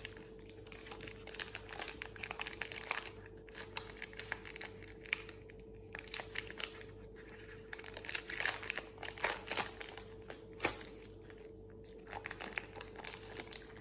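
Cadbury Picnic chocolate bar's plastic wrapper crinkling and crackling as it is peeled open by hand, in irregular bursts that are busiest a little past the middle, over a faint steady hum.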